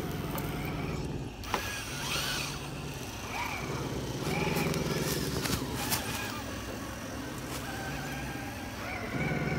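Electric motors and geared drivetrains of RC scale trail trucks whining as they crawl up a dirt trail, the hum swelling and easing with the throttle, with a few sharp clicks along the way.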